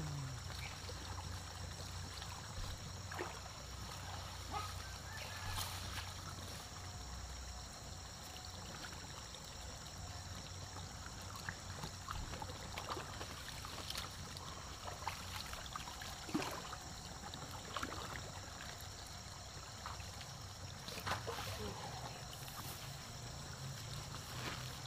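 Shallow creek water trickling steadily, with scattered small splashes and rustles as hands work in the water among the grass.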